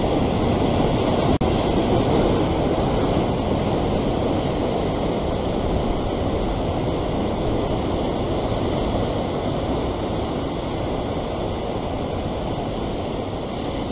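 Heavy ocean surf breaking and washing over a rock ledge, a steady rush of foaming white water.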